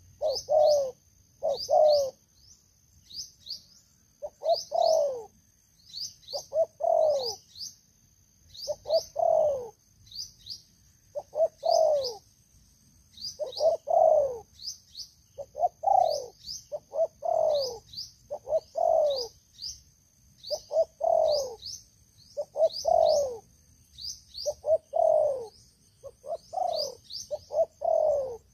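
Spotted doves cooing over and over, in groups of low notes that bend downward, about every one to two seconds. Fainter high chirps from another bird run over the coos.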